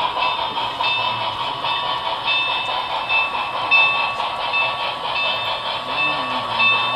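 Model passenger train, pulled by a Milwaukee Road S3 4-8-4 model, running along the layout track: a steady mechanical whirring and rolling, with thin high tones that come and go.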